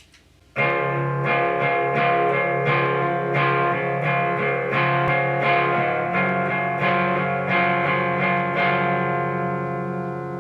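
Electric guitar played through a Benson Preamp overdrive pedal, giving a light, open overdrive tone. Chords start about half a second in and are struck again in a steady rhythm, and near the end the last chord is left to ring and slowly fade.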